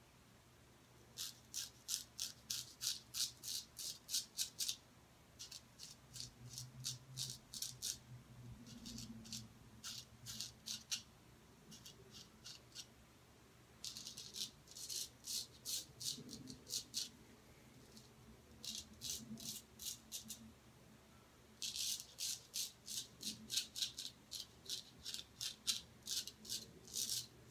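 Henckels 415 straight razor shaving stubble off the neck through lather: runs of rapid, crisp scratchy strokes, about eight to ten a second, in several bursts with short pauses between.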